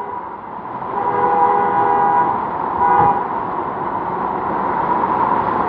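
A car horn held for about two seconds, starting about a second in and stopping with a brief knock, over the steady wash of cars driving through flood water.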